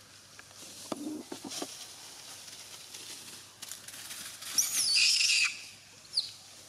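Newborn macaque infant giving a high-pitched squeal about a second long, falling in pitch then holding steady, followed shortly by a short high squeak. Soft scuffing and rustling come earlier.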